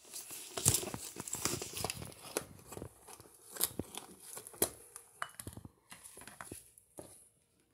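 Handling noise: gloved hands rustling and scraping against a cardboard product box and the plastic head of a Spider Wrap security device, with irregular small clicks and scuffs that die away near the end.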